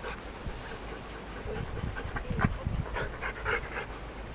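Large dog panting, a run of short, uneven breaths through the second half.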